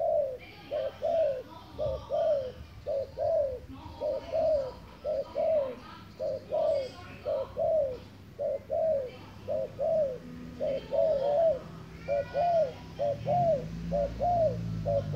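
Spotted dove cooing in a fast, even series of short rising-and-falling coos, about two a second.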